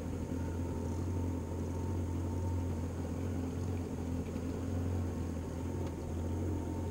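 Boat's outboard motor idling, a steady low hum.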